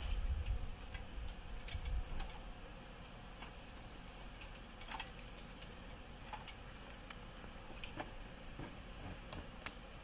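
Scattered light, sharp clicks and ticks at irregular spacing, about one a second, over a low rumble that fades after the first two seconds.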